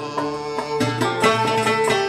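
Algerian chaabi music: a plucked mandole and banjos playing with a violin and keyboard, a steady run of plucked notes over a held tone.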